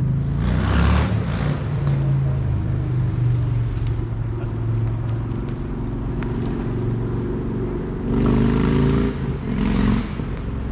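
An engine running steadily with a low, slightly wavering hum. Brief rushes of hissing noise come over it about a second in and again near the end.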